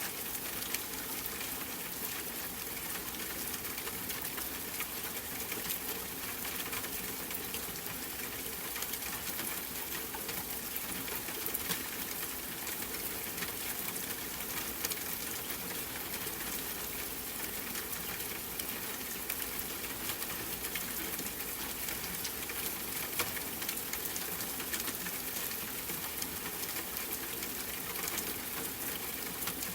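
Steady rain falling: an even hiss dotted with many small droplet ticks.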